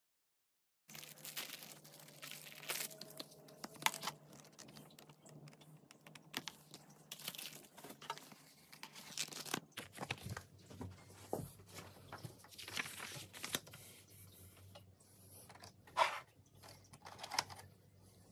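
Colored pencils and paper being handled: irregular light clicks and taps of wooden pencils in their case, mixed with rustling of paper sheets, and one sharper click near the end.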